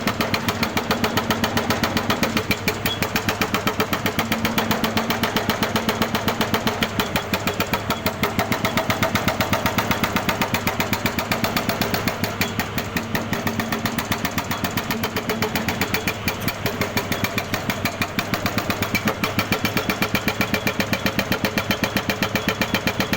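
Jackhammer running steadily, hammering in a fast, even rhythm of many blows a second.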